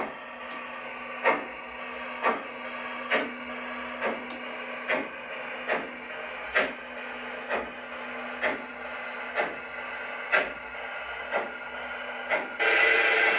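LGB garden-scale model steam locomotive running slowly, with a steady motor hum and sharp clicks at about one a second. A louder rushing noise starts near the end.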